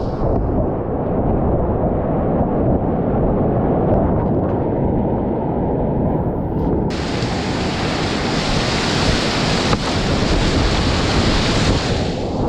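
Whitewater rapids rushing and churning around a kayak, a loud steady roar of water. It sounds muffled for about the first half, then turns bright and hissy about seven seconds in, and dulls again at the very end.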